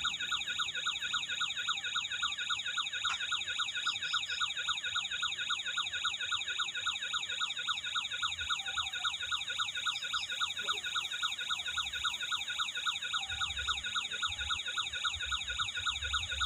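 Electronic toy siren from a remote-control truck's sound module, a fast warbling tone that sweeps over and over several times a second without a break.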